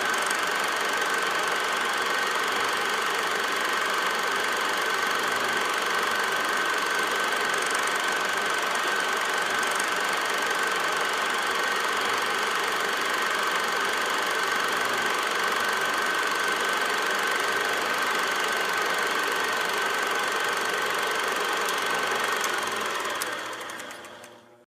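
Film projector running steadily, its motor and mechanism giving an even whirr with a constant high whine, fading out near the end.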